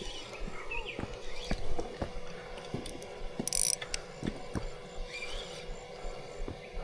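Fishing reel being worked, with irregular ratcheting clicks from its mechanism.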